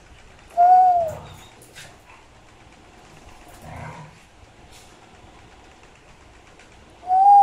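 Dog whining: a high, clear whine that rises and then falls, about half a second long, heard twice, about half a second in and again near the end.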